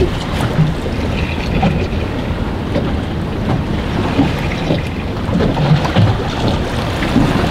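Wind buffeting the microphone over the wash of choppy sea around a small boat, with irregular low thumps of gusts and water slapping the hull.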